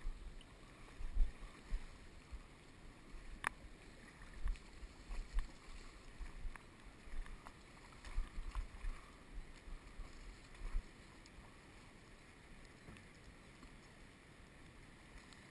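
Rowed boat on a river: faint steady water hiss with irregular low bumps and knocks for the first ten seconds or so, and one sharp click about three and a half seconds in.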